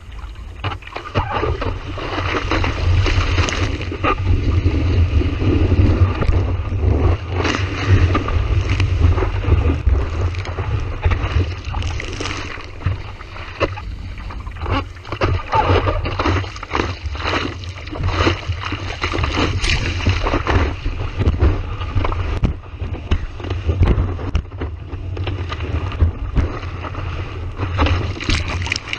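Strong wind buffeting the microphone in a heavy, rumbling low roar with crackling gusts, over the rushing noise of ocean surf.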